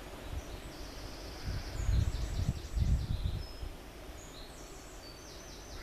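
Small birds chirping, with quick repeated trills twice, over a steady outdoor background hiss. Low rumbling buffets in the middle are the loudest sound.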